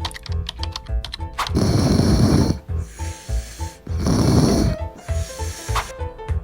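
A person snoring loudly twice, each snore lasting about a second, over light background music with plucked notes and a steady beat.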